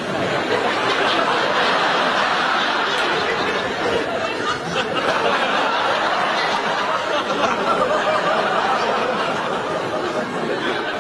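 Studio audience laughing, a steady wash of many people's laughter.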